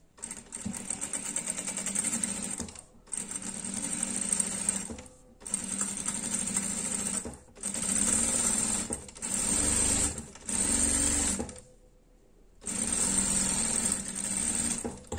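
Sewing machine stitching in a series of short runs, stopping and starting about seven times with brief pauses between them. This is the second pass of a French seam, sewn a little in from the edge to enclose the raw allowance.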